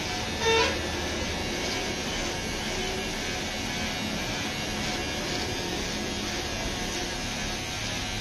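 Electric hair clipper running steadily as it is drawn over a boy's close-shaved scalp. A brief louder higher sound comes about half a second in.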